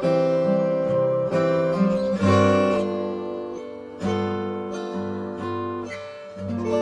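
Background music: an acoustic guitar strumming chords, with the chord changing every second or two.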